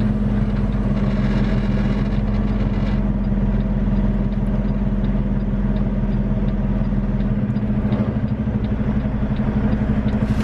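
Semi truck's diesel engine idling, a steady low hum.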